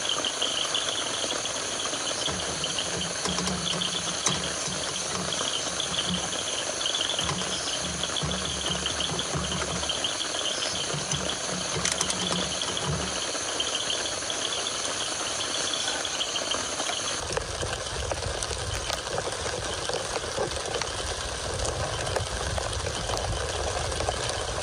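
Insects chirping in a fast pulsing trill over a steady hiss. A low rumble sets in about two-thirds of the way through as the chirping fades.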